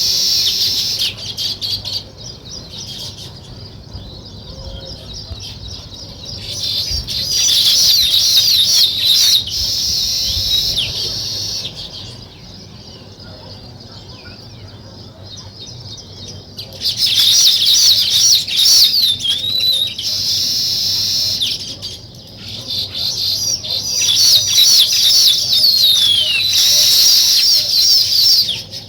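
A group of weaver birds chattering loudly in dense bursts of high, fast trills and sweeping chirps, with quieter gaps between the bursts.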